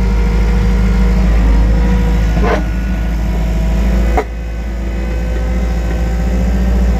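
Wacker Neuson 901s skid steer's diesel engine running steadily, heard from inside the cab. There is a short knock about two and a half seconds in and another about four seconds in, where the engine sound drops suddenly and then slowly builds back up.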